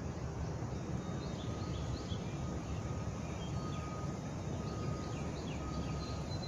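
Small birds chirping repeatedly over a steady low rumble, with a faint, thin steady tone running underneath.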